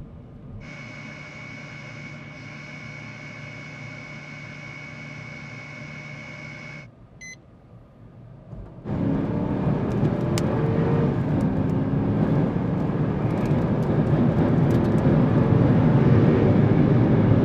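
Lockheed U-2's single jet engine: first a steady whine with a high, clear tone, then after a short dip and a brief beep about seven seconds in, the engine comes up to takeoff thrust, a loud rushing noise that keeps building as the jet rolls and climbs away.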